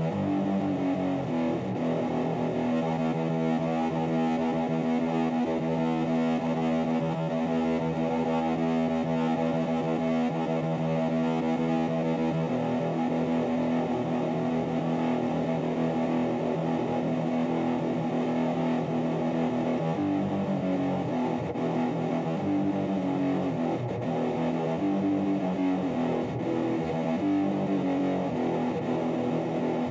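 Background music led by guitar with some distortion, including a long held chord from a few seconds in to about halfway through.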